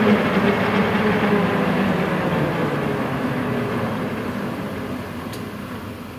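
Eurocopter EC 155 rescue helicopter's twin turbines and rotor winding down on the ground after landing: a steady hum whose pitch sinks slowly while it fades evenly.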